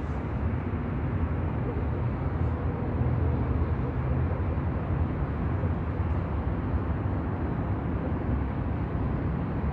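Steady low rumble of distant road traffic, unchanging throughout.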